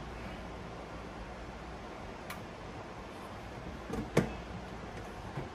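Quiet room tone with a few light clicks and knocks, the sharpest about four seconds in, from a blender's lid and controls being handled while it is set up for a self-clean cycle; the motor is not yet running.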